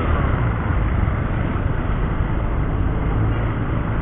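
Motorcycle running steadily at low speed in town traffic, heard from the rider's position: a Kawasaki Rouser 135's single-cylinder four-stroke engine rumbling low under a steady rush of wind and road noise.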